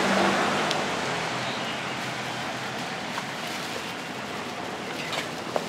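Steady hiss of street noise that eases off over the first two seconds. Under a second in, an egg cracks on the rim of a stainless steel mug; near the end a spoon clinks lightly in the mug a few times as the egg is stirred.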